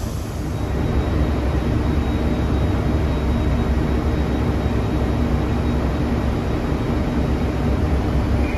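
Class 158 diesel multiple unit's underfloor diesel engines working under power as the train pulls away. The sound grows louder over the first second or so, then runs steadily.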